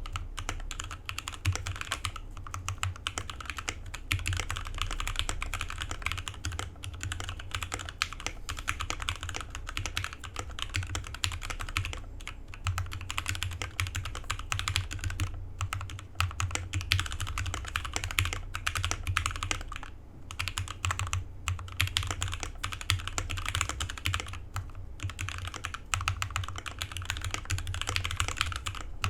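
Typing on a Drevo Gramr 84 mechanical keyboard fitted with lubed and filmed Gateron Yellow linear switches, Durock V2 stabilizers and a foam mod: a steady run of rapid keystrokes, broken by a few short pauses.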